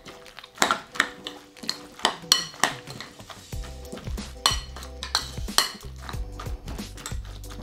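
Metal fork clinking and scraping against a glass mixing bowl in irregular strokes while stirring shredded coleslaw, over background music whose bass comes in about three and a half seconds in.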